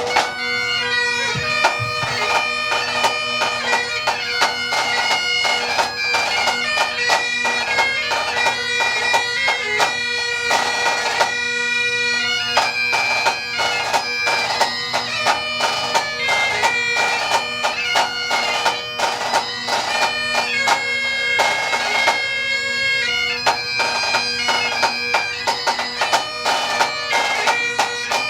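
Pipe band playing: Great Highland bagpipes sounding a stepping melody over steady drones, with drums beating along throughout.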